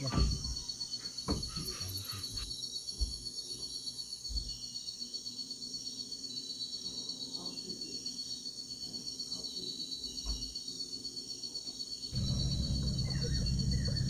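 Night chorus of rainforest insects: a steady, fast-pulsing high trill with other insects buzzing higher still, and a few soft low knocks. Near the end a louder, lower-pitched background sound cuts in abruptly.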